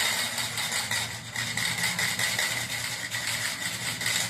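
A small motor running steadily with a low hum, a constant high whine and a fine rattle.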